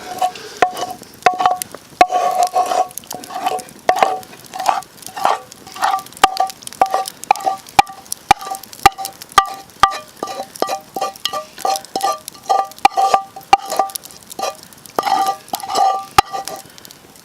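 A utensil stirring pasta in a steel frying pan, clinking and knocking against the pan in a quick, uneven run of about two or three ringing strikes a second, over a faint sizzle.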